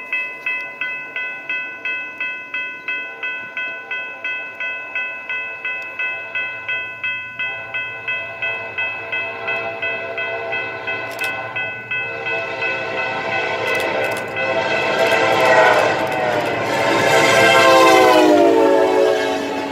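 Grade-crossing warning bell ringing steadily at about three strokes a second. About twelve seconds in, a passenger locomotive's multi-note horn chord sounds and grows loud as the train arrives. Its pitch drops as the locomotive passes near the end.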